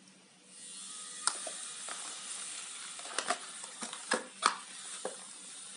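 Packaging being handled: a steady rustle starts about half a second in, with scattered sharp crackles and clicks.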